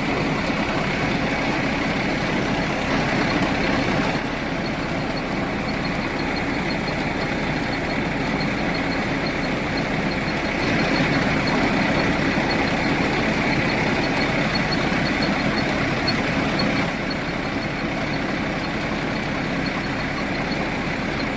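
Rice-milling machine running steadily, a loud, constant mechanical drone.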